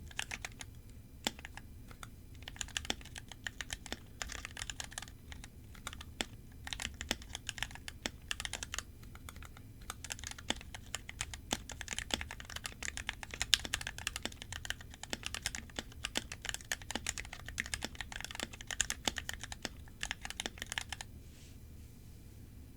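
Steady typing on an NK65 Entry Edition mechanical keyboard with lubed Gateron Clear linear switches, a fast, irregular patter of keystrokes. The typing stops about a second before the end.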